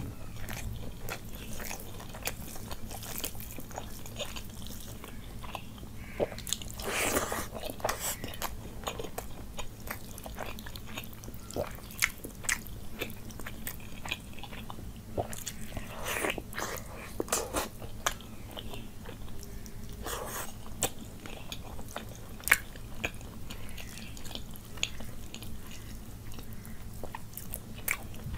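A person eating curry and rice by hand, close to the microphone: steady chewing and biting with many short wet clicks and the occasional crunch.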